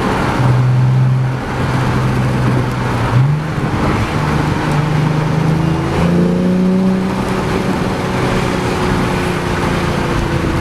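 Nissan 370Z's 3.7-litre V6 droning through an AAM Competition 2.5-inch true dual catback exhaust while driving. Its pitch steps up about three seconds in and again about six seconds in.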